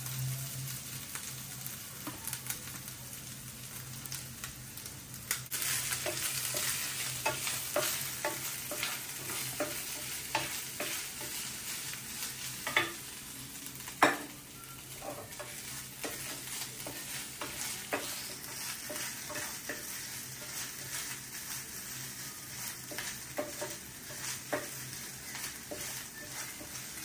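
Grated coconut roasting with spices in a pan, sizzling as a spatula stirs and scrapes, with scattered knocks of the spatula on the pan, the sharpest about fourteen seconds in. The coconut is being browned for the sambar's ground masala.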